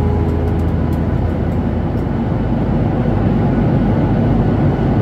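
Steady cabin noise of a jet airliner in flight: an even low rumble and rush of engines and airflow, heard from a passenger seat.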